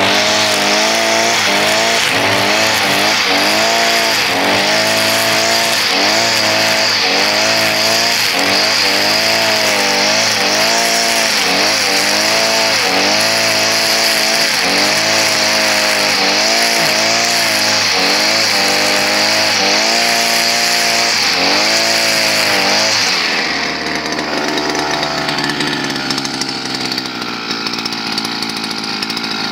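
Straus (Goodluck GL 4300) two-stroke brush cutter engine running at high revs while cutting grass, the pitch dipping and recovering about once a second as the head sweeps through the growth under load. About three-quarters of the way through the throttle is released and it drops to a steady idle.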